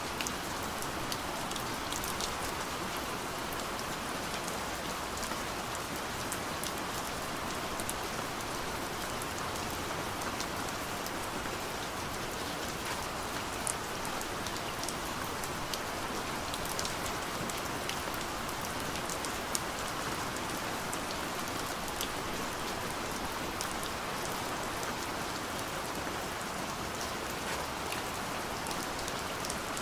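Steady soft rain falling on a window, a continuous even hiss with scattered light droplet ticks on the glass.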